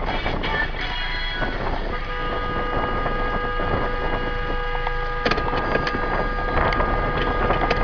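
Steady noise inside a stopped car picked up by a dashcam, with a constant hum and several steady whining tones, and a few sharp clicks about five seconds in.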